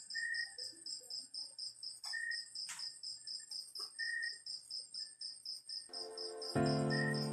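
Cricket chirping steadily in quick, even high-pitched pulses, about six a second, with a shorter, lower chirp every couple of seconds. Near the end, sustained musical notes come in.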